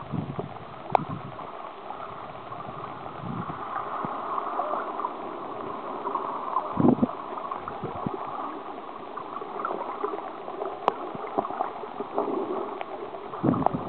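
Sea water heard through a camera held underwater in shallow water: a steady, muffled wash of water noise. It carries a few sharp clicks and a dull thump about seven seconds in.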